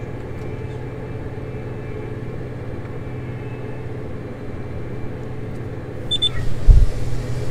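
Combine harvester running with a steady low drone. About six seconds in come two short high beeps and a thump, and the machine noise then grows louder and rougher.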